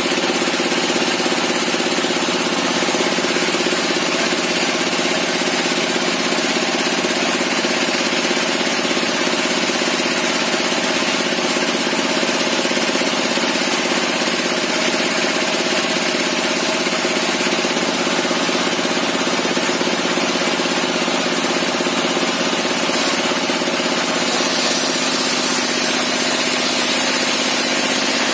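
Homemade table saw with a large circular blade spinning without cutting, its drive engine running at a steady speed.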